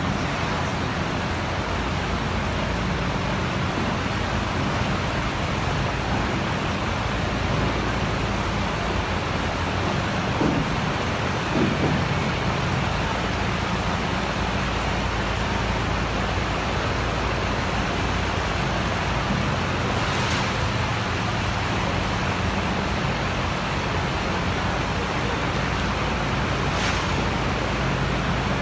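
Steady rumble of road vehicle noise, with two brief louder bumps around ten and twelve seconds in.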